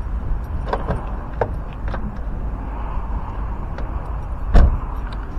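Steady low outdoor rumble of traffic and wind, with a few light clicks in the first two seconds and one sharp knock about four and a half seconds in.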